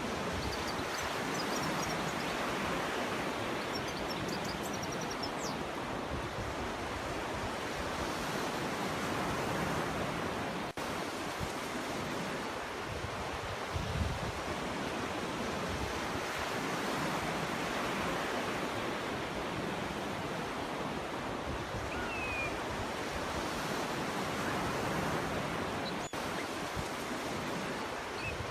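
Sea waves washing continuously onto a beach, swelling and easing gently. A few faint high bird chirps come through, mostly in the first few seconds.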